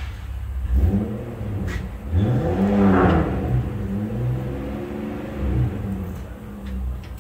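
A vehicle engine revving: its pitch climbs about two seconds in, then falls back and settles over the next few seconds.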